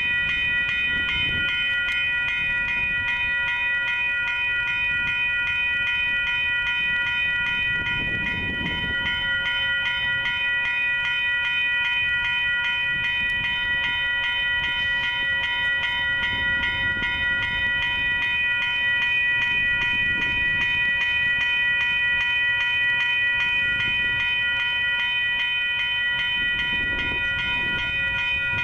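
Railroad grade-crossing warning bell ringing continuously with a fast, even repeating ding, the signal that a train is approaching, over a faint low rumble that comes and goes.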